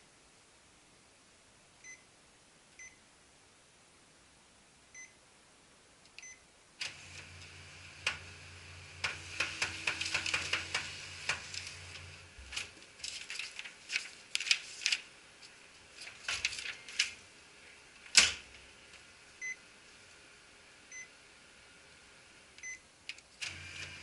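Ricoh Aficio MP301SPF copier running: a few faint short beeps, then about seven seconds in its drive motor starts with a low hum and a dense run of rapid clicking and rattling. The motor stops about halfway, scattered clicks follow with one loud sharp click, and the motor starts again near the end.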